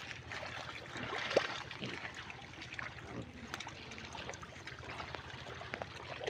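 Pigs moving about in wet mud: irregular squelching and splattering of mud and water, a dense run of small wet splats.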